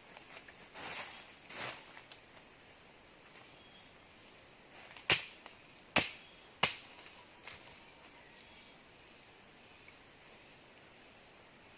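Steady hum of forest insects, with two short high whistled calls near the start, then three sharp clicks in quick succession about five to seven seconds in and a fainter one just after.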